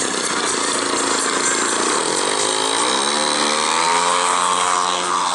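100cc two-stroke petrol engine of a large radio-controlled aerobatic model plane, running steadily and then opening up about two seconds in, its pitch climbing and then holding higher as the plane begins its take-off run.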